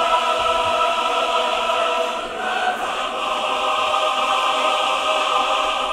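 Music: a sustained choir-like 'aah' chord that moves to a new chord a little over two seconds in.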